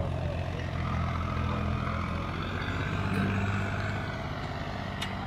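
Solis 5015 tractor's diesel engine running steadily under load in second gear, pulling a fully opened 16-disc harrow through dry soil. A sharp click near the end.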